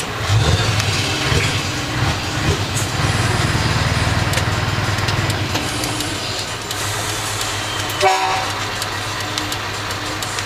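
Truck diesel engine running as the truck drives slowly, heard from inside the cab, louder for the first six seconds or so, then steadier. About eight seconds in comes a brief sharp sound with a short buzzy tone.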